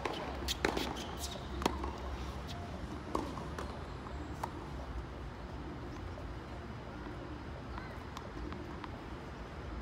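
Tennis ball struck with a racket and bouncing on a hard court during serve practice: a cluster of sharp pops in the first two seconds, then a few single knocks around three and four and a half seconds, over a steady low rumble.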